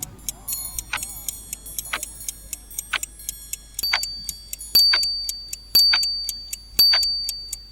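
Countdown timer sound effect: rapid clock ticking, about four ticks a second with a stronger tick each second. From about four seconds in, a ringing beep marks each second, sounding and fading away before the next.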